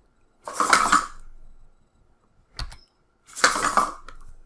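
Two ROBOTIS MINI humanoid robots moving on keyboard command: a short key click, then a clattering burst of servo and plastic-foot noise lasting just over half a second. This happens twice, about three seconds apart.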